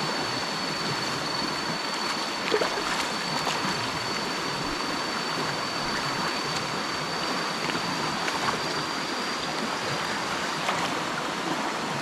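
Stream water running steadily over rocks, with a thin, high, steady whine above it that stops near the end.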